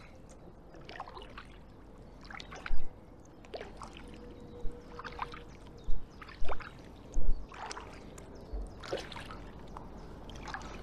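Kayak paddle strokes: the blade dips and splashes on alternating sides about once a second, with water trickling off it. A few louder low thumps come about three seconds in and again between six and seven seconds in.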